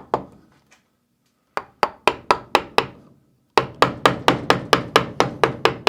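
Carving gouge being tapped into wood with a mallet: sharp, evenly spaced knocks about four a second, in two runs, one starting about a second and a half in and a longer one from about three and a half seconds in.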